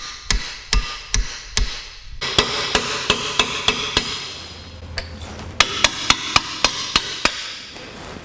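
Repeated hammer blows on metal, about two to four a second, with a break of about three seconds midway: a seized brake caliper slide pin being driven out of its bracket.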